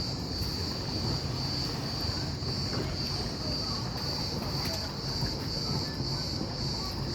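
Cicadas buzzing in chorus, a steady high shrill that swells and fades about twice a second, over a low continuous rumble.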